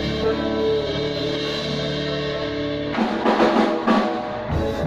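Band music with no singing: held chords over bass, then a run of drum hits about three seconds in.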